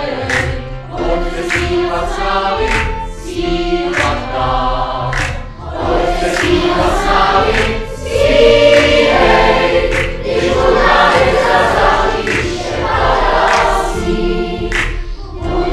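Large mixed choir of children's and adult voices singing a Czech Christmas carol, swelling louder about halfway through.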